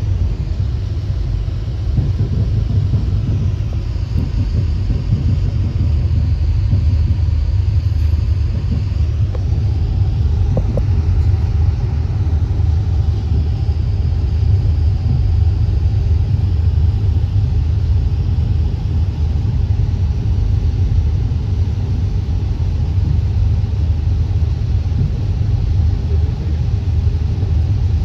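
VIA Rail passenger car rolling along the track, heard from inside the car as a steady low rumble. A faint high whine rises and falls above it now and then.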